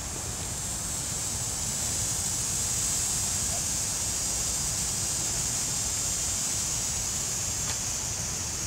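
Steady outdoor background: wind rumbling on the microphone under an even, high-pitched hiss, with a faint click near the end.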